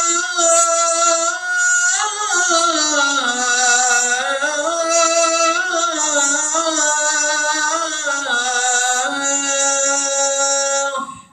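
A man chanting the adhan, the Islamic call to prayer, unaccompanied in Arabic. A long held note gives way, about two seconds in, to an ornate phrase that winds down and back up in pitch, then settles on a lower held note that stops sharply near the end.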